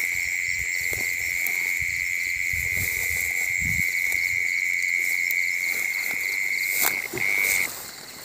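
A cricket's loud, continuous high trill with fainter chirping insects behind it. The trill breaks once about seven seconds in and stops soon after. Soft low thumps and a sharp click come from handling and steps in the grass.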